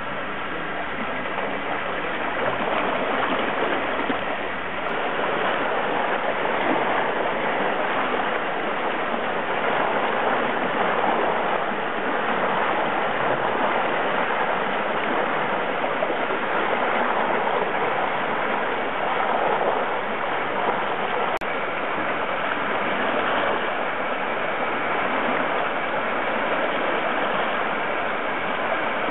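Water churning and splashing in a tank, stirred up by a submersible aerator fed by a blower: a steady rushing noise.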